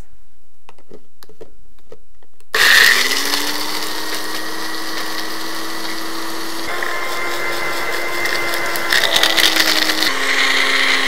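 Magic Bullet blender cutting in sharply about two and a half seconds in and running steadily as it grinds air-popped popcorn into flour. The motor's hum drops a little in pitch near the end. Before it starts, a few light clicks as the cup goes onto the base.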